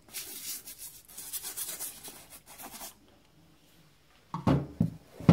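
Quick strokes of scrubbing on the rubber sole of a white Nike Air Force 1 trainer, working in baking-soda paste. They stop after about three seconds, and a few loud knocks follow near the end.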